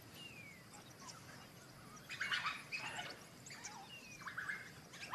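African wild dogs twittering: faint, high-pitched chirps and short falling whistles in a few scattered clusters. This is the excited call that rallies the pack.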